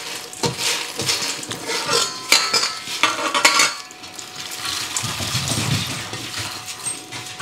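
Dry, light freeze-dried vegetable pieces rattling and clicking as they slide off a metal freeze-dryer tray into a stainless steel bowl, with the tray knocking against the bowl. It is busiest between about two and four seconds in, then eases off.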